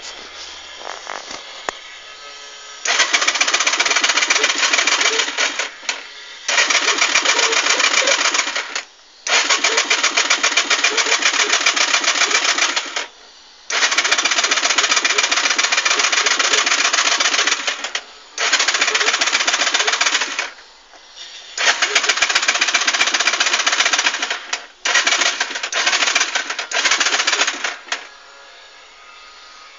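A car's starter being tried about seven times in a row, each try a few seconds of fast, even rattling with short pauses between; the engine never catches and does not start.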